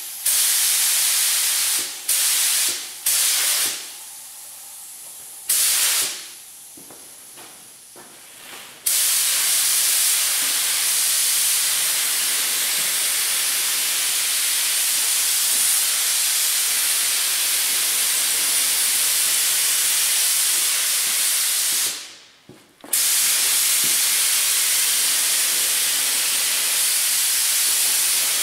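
Compressed air hissing through a DeVilbiss Finish Line gravity-feed spray gun: several short bursts near the start as the grille is blown off, then a long steady hiss as it sprays the first light coat of etching primer onto the scuffed chrome grille, broken by one brief stop.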